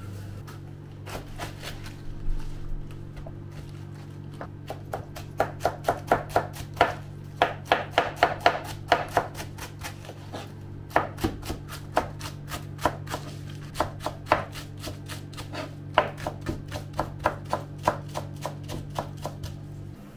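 Kitchen knife chopping food on a cutting board, in quick runs of about three cuts a second with short pauses, during döner-shop food preparation.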